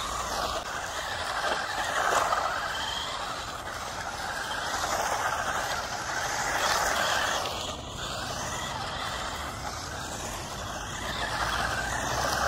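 Two 1/16-scale electric RC cars driving on rough asphalt: tyres hissing on the surface, with a motor whine rising and falling as they speed up and slow down. The sound swells and fades several times as they pass.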